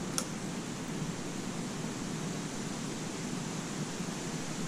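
Steady hiss of woodland background noise, with one faint click just after the start.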